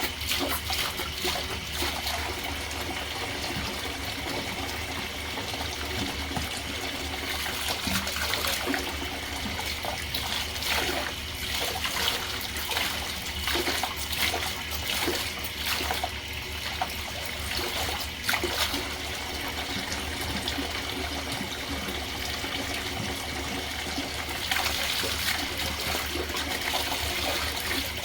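Tap water running steadily and splashing as a dirty vacuum cleaner filter is rinsed and handled under it, with scattered small splashes and knocks.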